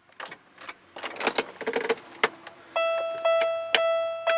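Keys rattling and clicking as the key is worked in the ignition of a 1997–2003 Pontiac Grand Prix, then the car's dashboard warning chime ringing about three times. No starter or engine sound follows: the failed ignition switch won't let the car turn on.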